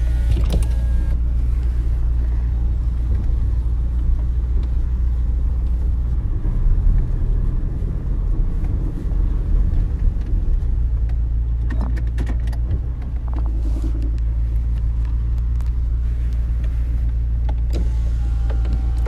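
Steady low engine hum running evenly, with a few short clicks about twelve seconds in.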